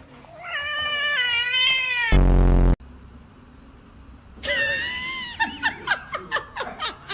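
Domestic cat yowling in the bath: one long, wavering wail, then later another wail that breaks into a quick run of short cries, about five a second. About two seconds in, a loud, low buzz of about half a second cuts in.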